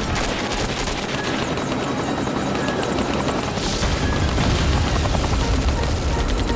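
Loud, dense mechanical chopping noise from a film sound-effects mix, with a deep rumble swelling from about four seconds in.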